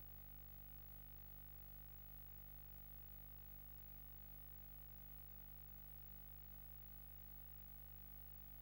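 Near silence: only a faint, steady low hum with no other sounds.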